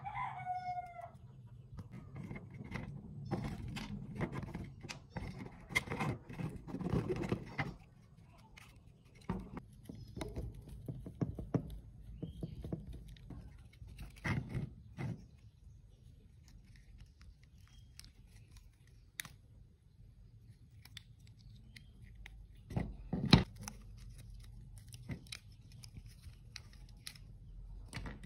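Plastic controller casing and circuit board being handled and taken apart: scattered clicks, rattles and knocks, the sharpest knock about three-quarters of the way through. A chicken clucks briefly at the start.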